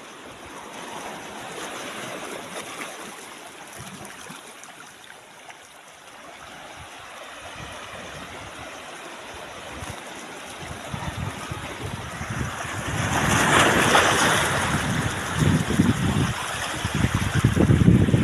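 Ocean surf washing in, with a wave breaking into a louder hiss about two-thirds of the way through. Wind buffets the microphone in low, irregular rumbles that grow stronger toward the end.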